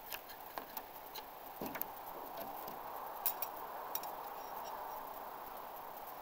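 Light scattered clicks and taps of steel throwing knives being pulled from a wooden target board and handled, with footsteps, over a steady faint hiss. The clicks die away after about four seconds, leaving only the hiss.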